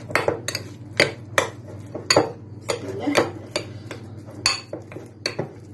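Irregular clinks and knocks against a ceramic bowl, a few a second, as minced meat and onion are mixed in it by hand, over a steady low hum.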